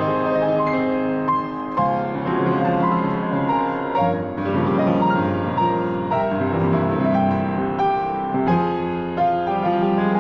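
Piano music: a slow piece of held chords and a melody, the notes changing every second or so.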